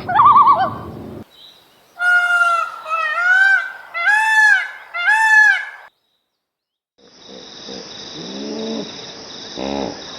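A goose honking four times, each honk rising and falling in pitch, after a short wavering call at the start. A few seconds in, a different, hissier recording begins with lower calls.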